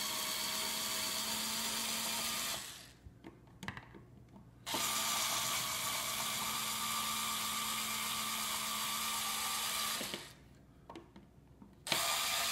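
Cordless drill/driver running steadily in three runs as it drives the outlet's two mounting screws into the electrical box: a run stops about two and a half seconds in, a few small clicks follow, a longer run of about five seconds comes next, and another run starts near the end.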